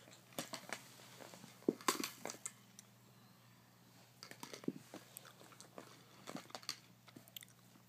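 Hollow plastic stacking rings of a Fisher-Price ring-stacking toy clacking against each other and the plastic post as a baby handles them. Scattered light knocks and clicks come in clusters, with a quieter spell about three seconds in.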